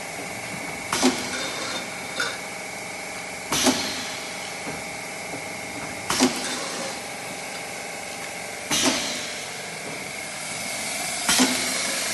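Ice-gel paste packaging machine (vertical form-fill-seal bagger) running its bagging cycle: a sharp mechanical clack with a brief hiss after it repeats five times, about every two and a half seconds, as the machine strokes through each bag. Between strokes there is a steady machine hum with a thin high whine.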